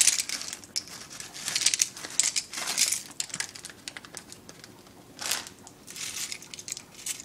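Foil-lined corn-chip pouch crinkling in irregular bursts as it is shaken and the corn chips are tipped out of it into a skillet.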